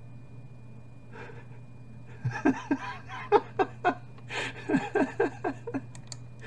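A man laughing: breathy snorts, then a run of short, falling-pitched 'ha' bursts about four a second, with gasping in-breaths between, starting about two seconds in. A steady low electrical hum sits underneath.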